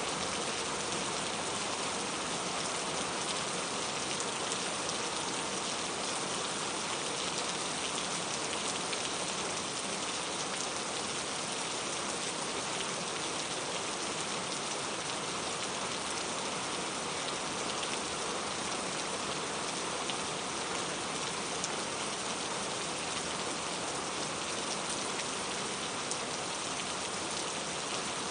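Steady rain falling, an even hiss of many drops with faint scattered pattering.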